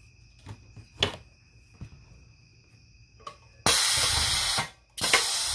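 Edward Segal Model 3P6 grommet press at work setting grommets and washers in Coroplast sign board. First a few faint clicks of grommet and washer being placed, then two loud hisses, each about a second long, that start and stop abruptly with a short break between them.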